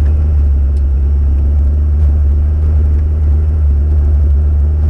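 A 4x4 trial vehicle's engine idling steadily, heard from inside the cab as a loud, even, low drone.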